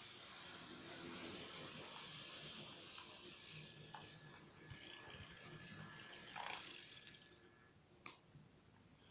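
Model train running on three-rail track: a steady mechanical rattle with a hiss that stops about seven and a half seconds in, followed by a single click.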